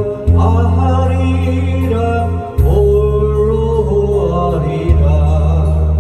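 A Korean popular song plays, a gliding melody over long held bass notes that change about every two and a half seconds.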